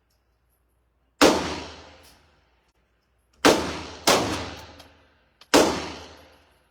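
Four gunshots fired at a shooting range, uneven in spacing with two close together in the middle. Each is a sharp crack that rings out and fades over about a second.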